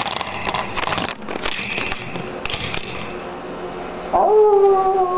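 Rustling and handling noise as a werewolf mask is pulled on, then, about four seconds in, a man howling like a wolf in one loud, long held note.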